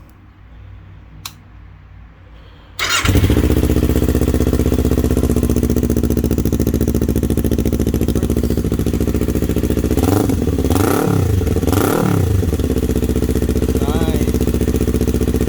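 Kawasaki Ninja 400's parallel-twin engine, breathing through a newly fitted slip-on exhaust with its baffle in, starting up about three seconds in after a single click, then idling. Two quick throttle blips come around ten and twelve seconds in. Pretty loud.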